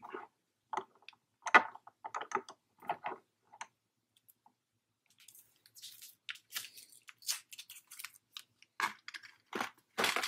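Plastic toy packaging crinkling and crackling in short, separate bursts with light clicks as the action figure and minibike are handled and freed, pausing briefly in the middle.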